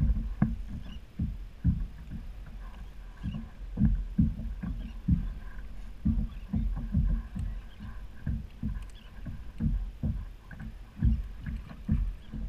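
Water slapping and knocking against a plastic fishing kayak's hull: irregular low thumps, several a second, while a fish is fought on rod and reel.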